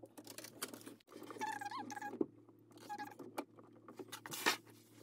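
Faint handling noise of plastic RO tubing and a push-fit fitting: light clicks and rustles with a couple of short squeaks, over a low steady hum.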